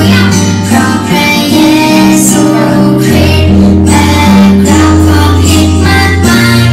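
A children's worship action song: a woman's voice and children's voices singing over guitar and bass, with held bass notes changing every second or two.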